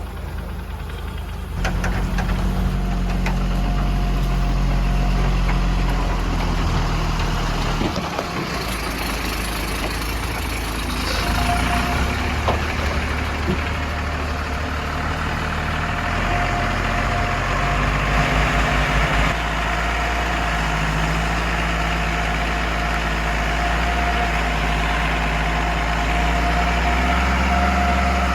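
Heavy diesel engines of a backhoe loader and a tipper truck running steadily, getting louder about a second and a half in. A thin steady whine joins the engine sound from about eleven seconds on, with a few scattered knocks around the middle.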